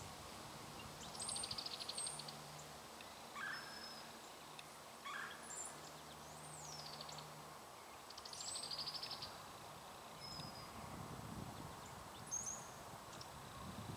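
Small songbirds calling and singing: a buzzy high trill about a second in and another near nine seconds, with scattered short whistles and chirps between.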